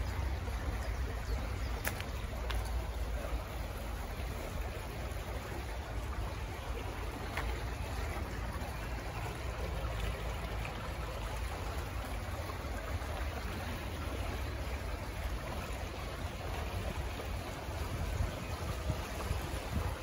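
Water splashing and bubbling steadily from small fountain jets in a shallow ornamental pool, over a steady low rumble.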